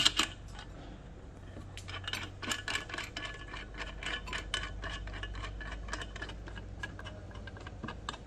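Light metallic clicks and clinks as nuts on a resin 3D printer are tightened down: one sharp click at the start, then a quick, irregular run of clinks from about two seconds in until near the end.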